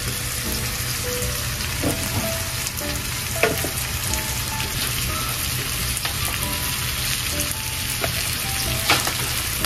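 Onions, peppers and sliced sausage sizzling as they fry in olive oil, with a few short scrapes of a spoon stirring the pan.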